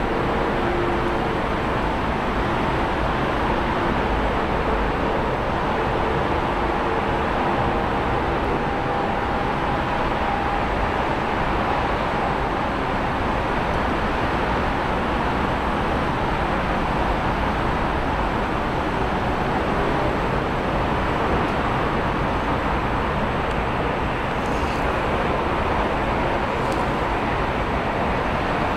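Steady roar of airport noise, jet engines blending with distant traffic rumble, with faint engine whine tones through the first ten seconds.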